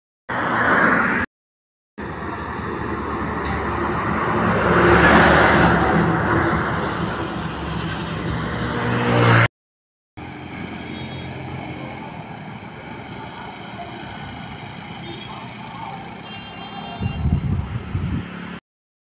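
Road traffic: a vehicle passes close by, its engine and tyre noise swelling to a peak about five seconds in and then easing off. After that comes steadier, quieter traffic noise with a few low rumbles near the end. The sound cuts out abruptly twice between joined clips.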